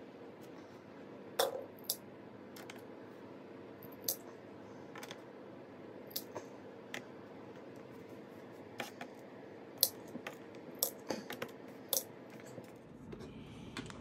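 Scattered light clicks and taps of hands and a small screwdriver working on a laptop's plastic bottom case while its screws are taken out, over a faint steady hum. The sharpest clicks come about a second and a half in and twice near the end.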